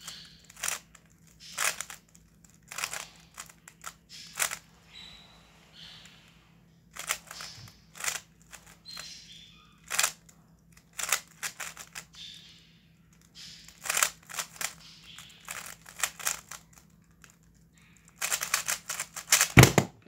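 A stickerless plastic 3x3 speed cube being turned fast by hand: its layers clack and click in irregular bursts of turns with short pauses between them. Near the end comes a rapid flurry of turns, then a heavier thump as the hands come down flat to finish the solve.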